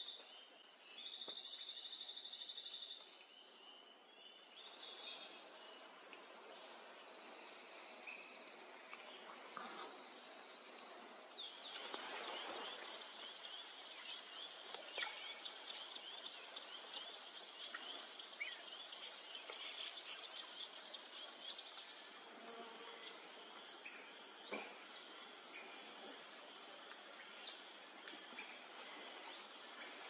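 Forest insects singing a steady, high-pitched drone. It pulses at first, then changes to a different steady tone about 11 seconds in and again about 22 seconds in.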